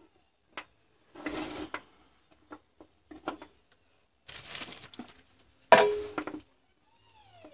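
Handling noise from a pack of 18650 lithium-ion cells and their wires being picked up and moved: short rustling, clattering bursts, the loudest about six seconds in. A cat meows faintly at the very end.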